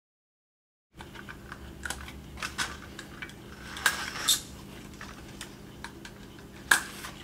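Small plastic clicks and knocks as a Polaris 380 pool cleaner's wheel, spacer and bearing are handled and fitted onto its frame, with one sharper click near the end. The first second is dead silence.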